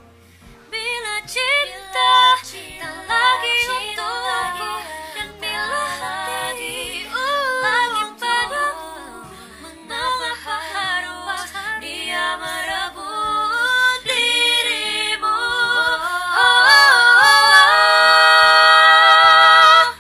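A woman singing solo a cappella, with fast vocal riffs and runs decorating the melody. Near the end she holds one long note, which cuts off suddenly.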